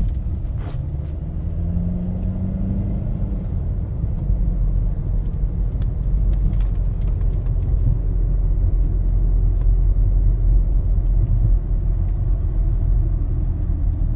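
Steady low rumble of road and engine noise inside a moving car's cabin, with a faint rising tone about two seconds in.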